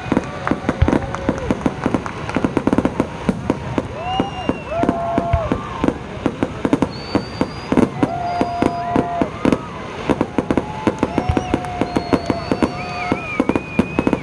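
Fireworks show: rapid, dense crackling and popping bursts throughout, with several held tones that rise and hold for about a second each.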